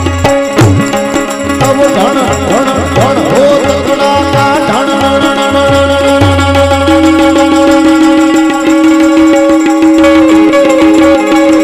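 Instrumental passage on harmonium and tabla: the harmonium plays held notes and the tabla plays strokes with deep bass-drum tones in the first half; from about the middle the harmonium holds steady notes.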